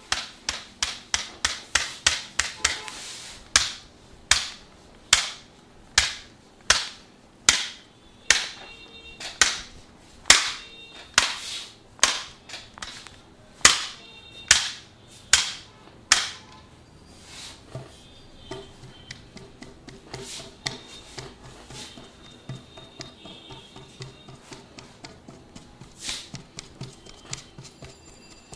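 Percussive massage strikes on the body: a quick run of sharp slaps at the start, then harder single strikes a little over one a second, turning lighter, softer and quicker in the last third.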